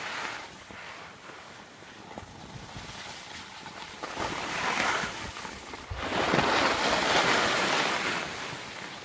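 Wind gusting over the microphone: a rushing noise that swells about halfway through and again, louder, for a couple of seconds after that.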